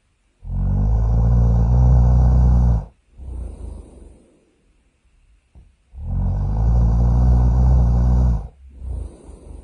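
Cartoon character's loud snoring: two long, deep snores about five seconds apart, each followed by a shorter, softer breath out.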